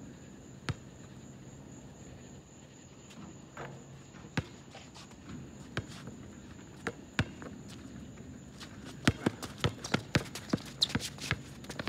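Basketball bouncing on an asphalt court: a few slow dribbles, then from about nine seconds in a quick run of hard dribbles and sneaker steps as the player drives to the hoop. A steady high whine runs underneath.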